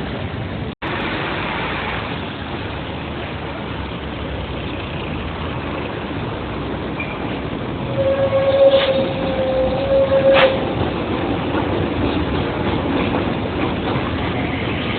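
A train running past with a steady rush of noise. About eight seconds in, a horn sounds one steady note for about two and a half seconds, with a brief break near the end.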